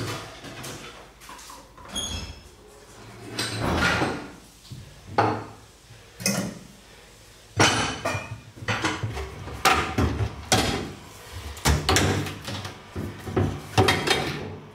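Irregular clatter of dishes and pots being set down and stacked in wooden kitchen cupboards, with the wooden cupboard doors knocking open and shut. Some of the clinks ring briefly.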